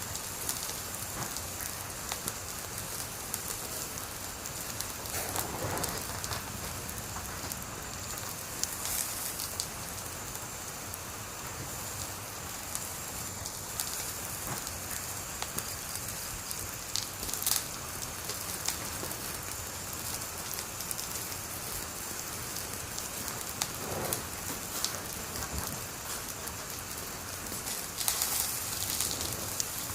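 Wood fire burning with a steady hiss, scattered crackles and sharp pops throughout, with a cluster of louder pops near the end.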